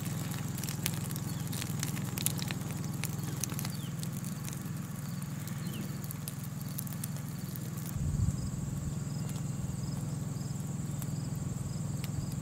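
Wood fire crackling in a steel fire pit, with scattered sharp pops, over a steady low hum.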